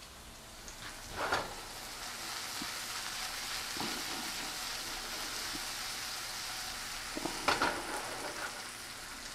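Food sizzling in a hot frying pan on the stove, a steady hiss that builds about a second and a half in. Two short clattering knocks of pan or utensil, one about a second in and one near the end.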